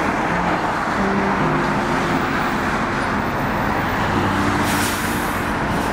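Steady city road traffic noise, with cars passing close by on a multi-lane road.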